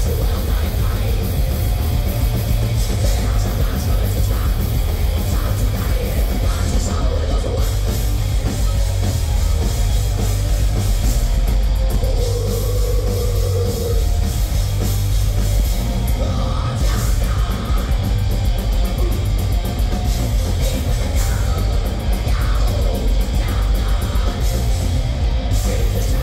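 Live heavy metal band playing loud: distorted electric guitars, bass guitar and drum kit, recorded from the crowd with a heavy, booming low end.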